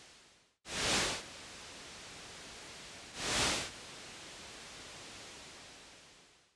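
Live-generated electronic noise played through delay loops: a steady hiss that fades and drops out briefly, then two swells of louder hiss, about a second in and just after three seconds, each rising and falling over about half a second.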